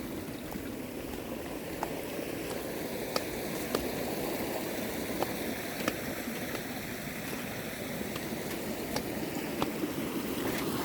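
Storm runoff water flowing strongly: a steady rushing noise, with scattered sharp ticks throughout.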